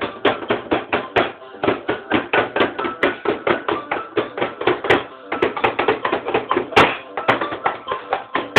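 Fast, even tapping or knocking, about six or seven strokes a second, over faint music.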